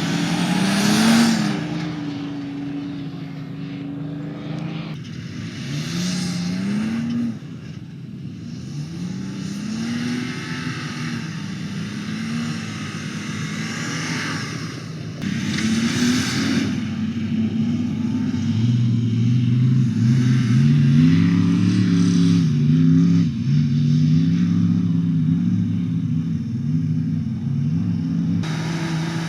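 Toyota 4Runner's 4.0-litre V6 engine under load in sand, its pitch climbing and dropping again and again as it revs up and shifts, with short bursts of rushing noise at times.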